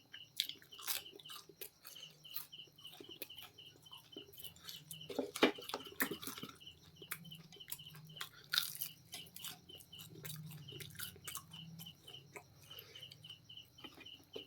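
Close-miked chewing and biting of crispy KFC fried chicken: irregular crunches and wet clicks, with the loudest bites about five to six seconds in. Behind it a high chirp repeats steadily about four times a second.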